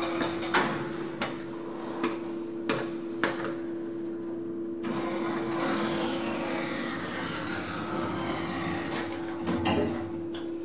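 Passenger lift running between floors, heard from inside the car: a steady hum with a whirring hiss, broken by a few sharp clicks in the first three seconds and again near the end.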